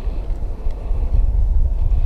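Wind buffeting the microphone, a steady low rumble, with a few faint clicks.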